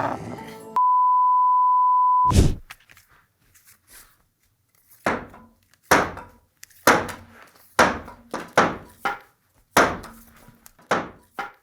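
A steady high beep held for about a second and a half, cut off by a thud. After a short pause comes a run of about ten sharp thunks and knocks, roughly one a second, from objects landing during repeated trick-shot attempts.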